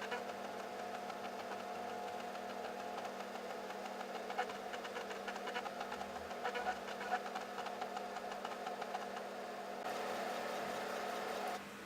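USB floppy disk drive reading a disk: the spindle motor runs with a rapid, irregular ticking of the head stepper seeking across the tracks. It stops abruptly near the end.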